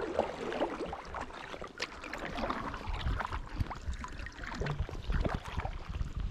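Kayak paddle strokes through calm water: irregular splashes and drips off the blade. Low rumbles come in from about halfway through.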